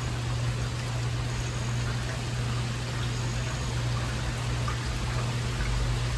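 Heavy rain falling steadily: an even hiss with scattered small drips, over a steady low hum.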